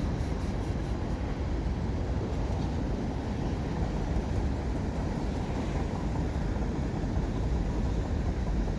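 Canadian National mixed freight train rolling past at speed: a steady, even rumble of cars on the rails.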